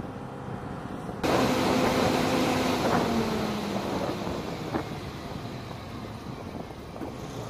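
Machinery running on an airfield flight line: a loud rushing noise with a steady hum cuts in suddenly about a second in. The hum drops slightly in pitch a couple of seconds later, and the sound then gradually eases off.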